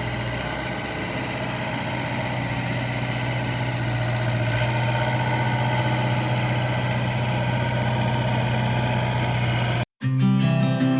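Excavator engine running steadily, a constant hum that swells slightly partway through. Near the end it cuts off abruptly and acoustic guitar music begins.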